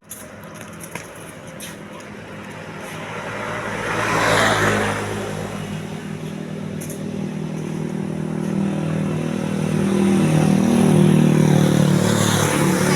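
Road traffic: a vehicle passes about four seconds in, then a heavy engine's low drone builds steadily from about eight seconds in as a large vehicle draws near.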